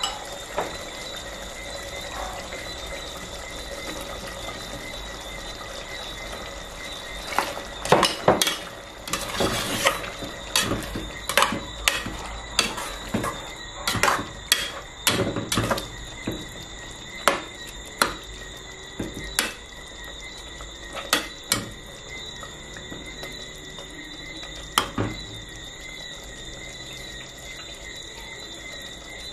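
A metal spoon stirring chicken curry in a pot. It knocks and clinks against the pot's side many times, starting about seven seconds in and easing off near the end, over a steady bubbling background.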